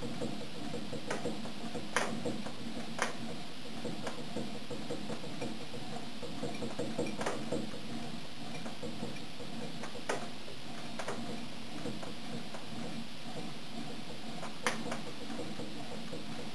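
Small Stirling machine running as a refrigerating unit: a steady mechanical hum with a few sharp, irregular clicks.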